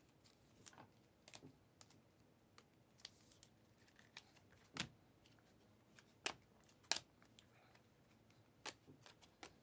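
Quiet handling of trading cards: soft rustling and scattered sharp clicks, the loudest about five, six, seven and nine seconds in.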